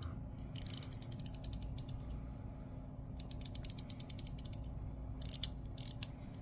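1930 Illinois pocket watch being wound at the crown: the mainspring ratchet's click gives out bursts of rapid fine clicks, several bursts with short gaps between them.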